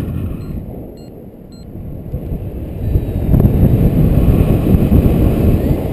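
Wind noise on the microphone of a paraglider pilot's camera in flight: a low, gusting rush of air that eases about a second in and builds back strongly from about three seconds on.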